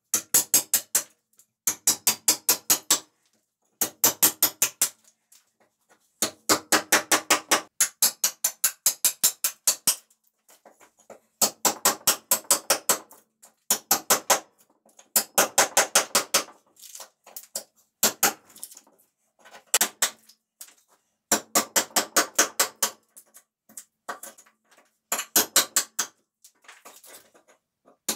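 Small hammer rapidly tapping a wood chisel to chip bark off the edge of a dried ash slab, in quick runs of about eight blows a second, each run lasting a second or two with short pauses between.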